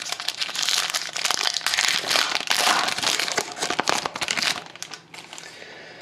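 Silver foil wrapper of a trading-card pack crinkling and tearing as it is ripped open by hand, with dense crackling that dies down about five seconds in.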